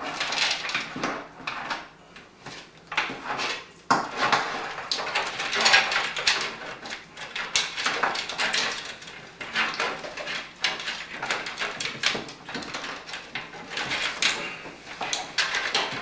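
Power-supply cables being handled and routed through a PC case: irregular rustling and scraping, with many small clicks and knocks as the cables rub and tap against the case.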